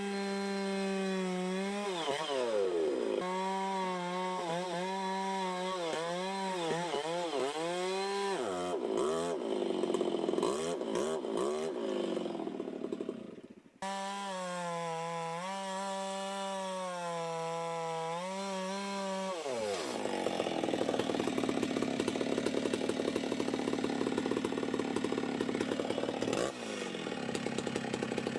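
Chainsaw idling, then revved with its pitch swinging up and down as it bites into wood. After a brief drop-out about halfway it idles again, then runs at full throttle in a long steady cut before easing back toward idle near the end.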